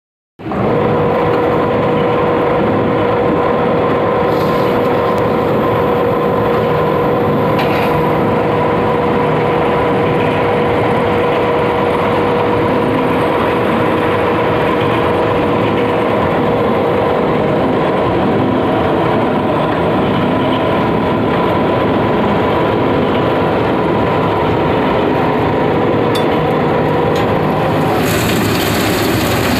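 Hopper concrete batching plant running: a loud, steady mechanical din from its motors and aggregate-handling gear, with a steady whine that cuts out near the end, leaving a hissier noise.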